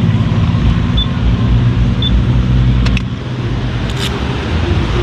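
Yamaha XMAX scooter's single-cylinder engine running steadily under way, with wind and road noise. The engine eases off slightly about three seconds in. Short high beeps sound about once a second early on, and there are two brief clicks near the middle.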